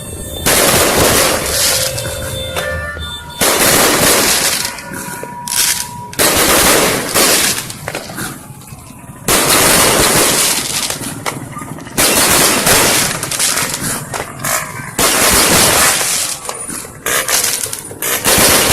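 Fireworks going off: loud volleys of rapid bangs and crackling, coming in bursts about a second long every two to three seconds.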